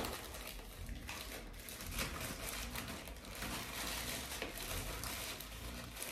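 Plastic wrapping crinkling and rustling as a sealed packet is torn open and handled, a continuous run of small irregular crackles.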